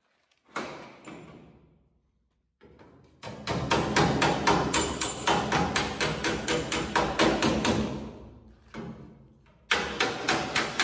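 Hammer and dolly tapping out the sheet-metal side of a squarebody Chevy truck bed: one knock that rings out, then fast even blows about four to five a second, pausing briefly before the hammering picks up again.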